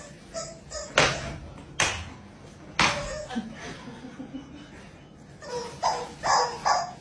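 Three sharp lashes of a swung belt at roughly one-second intervals, followed near the end by a short burst of laughter.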